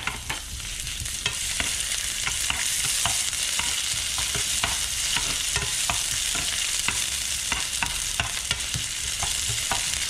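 Sliced garlic, ginger and chillies sizzling in a little hot cooking oil in a frying pan, a steady hiss, with a metal spatula clicking and scraping against the pan about once or twice a second as they are stirred.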